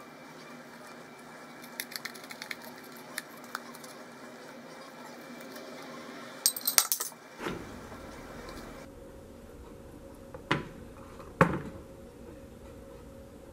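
A metal vegetable corer working out the centre of a zucchini, with scattered light clicks, then a quick run of sharp metallic clinks against a ceramic plate about halfway through. Two sharp knocks about a second apart follow near the end.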